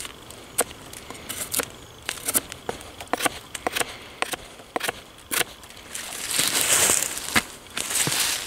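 Wooden digging stick jabbing and scraping into forest soil: a run of short knocks and crunches, with a longer scraping rush about six seconds in and again near the end. The stick is prying away the humus layer to reach mineral soil for a fire spot.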